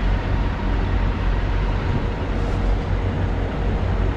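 Steady low rumble of parked semi-trucks' diesel engines idling, under an even hiss.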